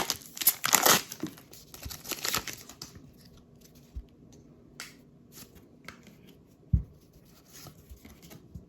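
Wrapper of a Topps Heritage baseball card pack being torn open and crinkled, loudest in the first two and a half seconds. It is followed by softer rustling and ticks as the cards are handled, and a soft thump near the end.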